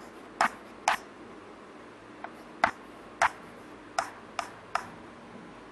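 Chalk writing on a chalkboard: about eight sharp, irregularly spaced taps as the chalk strikes the board while an equation is written out.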